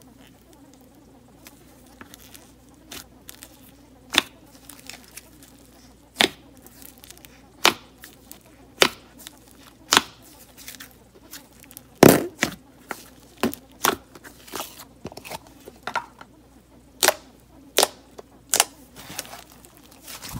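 Thick pink slime being poked and squeezed by fingers in a plastic tub, giving sharp popping clicks about once a second as air pockets burst, the loudest pop about halfway through.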